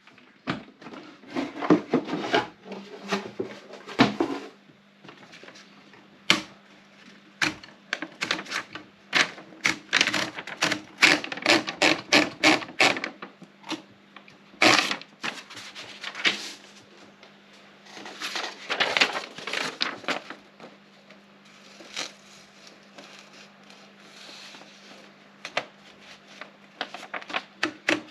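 Olympia Splendid 33 manual portable typewriter being typed on: runs of quick key strikes with short pauses between them.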